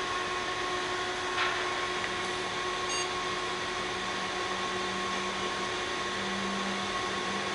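Steady whir of running fans with a constant hum underneath, and a faint click about one and a half seconds in.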